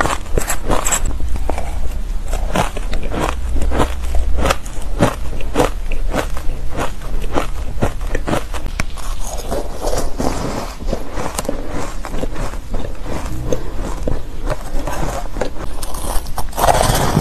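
Close-miked crunching of matcha-dusted shaved ice as it is bitten and chewed: a steady run of crisp crunches, about two a second, with a softer hissing stretch partway through.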